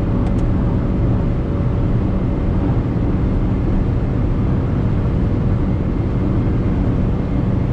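Cabin sound of a Tata Punch cruising at high speed in fourth gear: its 1.2-litre naturally aspirated petrol engine drones steadily under a dense rumble of road and wind noise.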